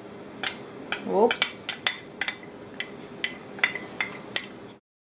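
Metal spoon tapping and scraping against the inside of a small glass bowl, a quick irregular series of light clinks as the last of the cornstarch is knocked out.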